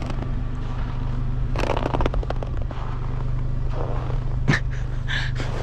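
A vehicle engine running at a steady idle, with a cluster of rattling, scraping clicks about two seconds in and single knocks near the end.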